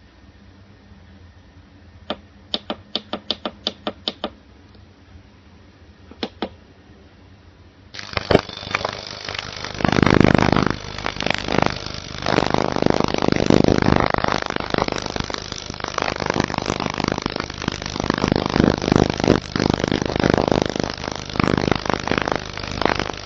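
A quick run of clicks as the control panel buttons of a digital ultrasonic cleaner are pressed, then about eight seconds in the cleaner starts: the water in its stainless steel tank gives off a loud rasping hiss with cavitation, swelling and dipping as it runs.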